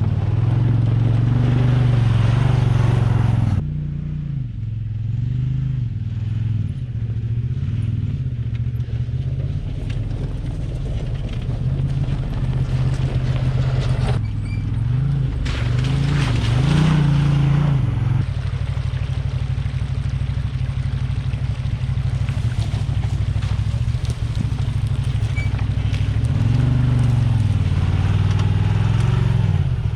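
Can-Am Maverick Sport XRC side-by-side on the move, its Rotax V-twin engine running with its pitch rising and falling as the throttle is worked, with the strongest rise about halfway through.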